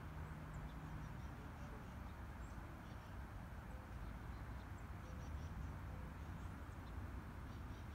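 Steady wind rumble on the microphone, with faint, scattered chirps of small birds.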